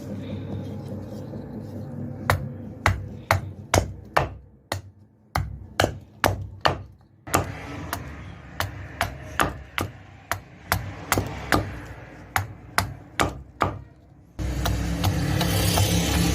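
Blacksmith's hammer striking metal on an anvil, a series of sharp ringing blows at about two a second. Near the end the hammering stops and a loud steady rushing noise starts abruptly.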